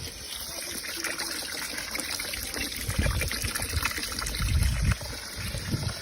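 Water trickling and splashing, with a few low knocks of handling.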